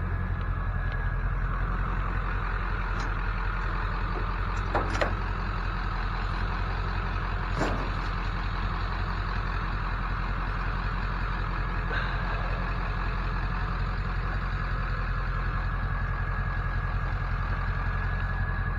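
Vehicle engine running steadily with a low, even hum, with a couple of brief clicks about five and eight seconds in.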